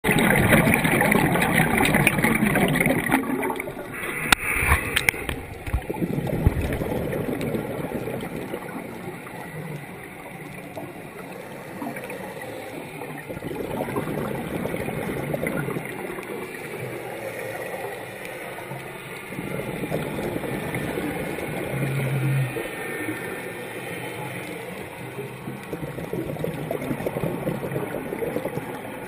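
Scuba divers' exhaled bubbles and regulator breathing, heard through an underwater camera housing. The noise comes in slow swells every six seconds or so, loudest at the start, with a few sharp clicks about four to six seconds in.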